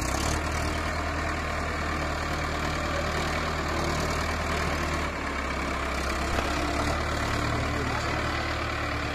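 Mahindra Arjun 555 DI tractor's diesel engine running steadily while it drives a rotary tiller through a muddy field. The engine note shifts slightly about five seconds in.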